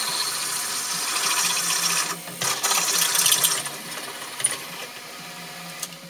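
Drill press with a large twist drill cutting through thick steel: a dense, steady scraping grind over the hum of the press motor, with a short break about two seconds in. The cut eases off after about three and a half seconds.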